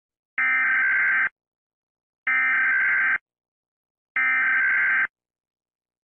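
Emergency Alert System SAME header: three bursts of digital data tones, each just under a second long and about two seconds apart, with silence between. These coded bursts open an emergency alert message, ahead of the attention tone.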